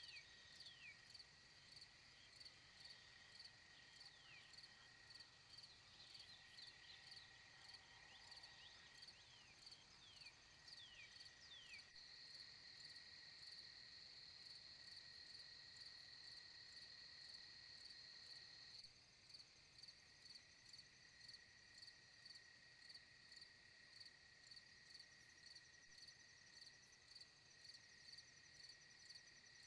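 Faint chorus of crickets and other insects trilling steadily, with quick falling chirps during the first twelve seconds. The mix changes abruptly twice, about twelve and nineteen seconds in.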